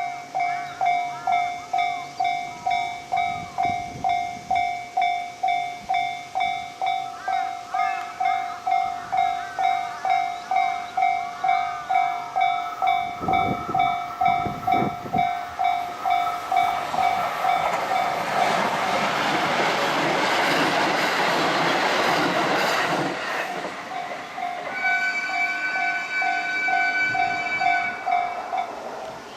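Japanese level-crossing warning bell ringing in an even rhythm of about two strokes a second. A train passes over the crossing about two-thirds of the way through with a rush of wheel and rail noise, and the bell stops shortly before the end.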